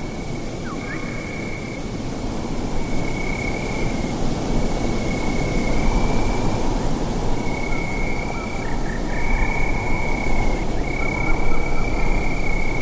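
Night ambience: a steady low rushing noise like wind, with a high insect trill that comes and goes in stretches of about a second with short gaps.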